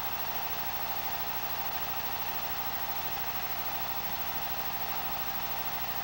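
Steady machine whir with a constant electrical hum, unchanging throughout.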